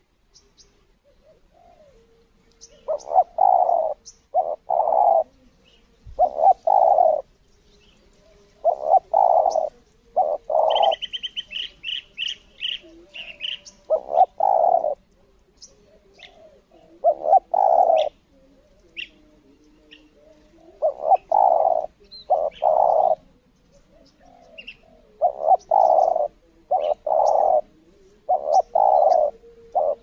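Spotted doves cooing in repeated phrases of a few low notes every few seconds. A rapid high trill from another bird comes about eleven seconds in.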